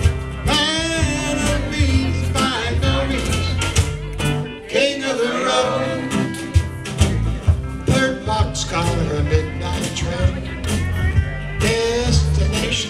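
Live country band playing a song: acoustic guitar strumming, electric guitar and pedal steel guitar, with a man singing the lead at the microphone, over a steady beat.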